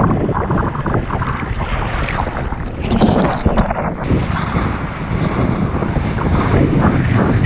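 Strong wind buffeting an action camera's microphone, with the rush and splash of a kiteboard skimming over lake chop.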